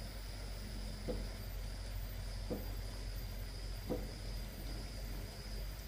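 Slow footsteps, three soft steps about a second and a half apart, over a steady low hum and a thin, steady high whine.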